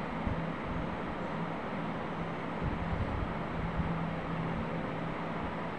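Wooden spatula stirring diced bottle gourd in a nonstick frying pan, with a few soft knocks, over a steady hiss and low hum.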